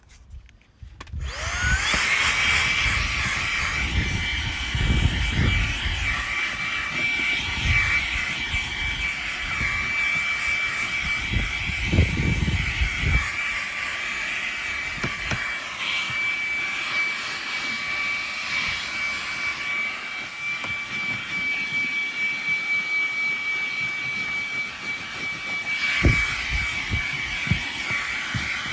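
Rechargeable handheld vacuum cleaner switched on about a second in and running steadily with a high-pitched motor whine. Occasional low bumps and rumbles come through as the nozzle moves.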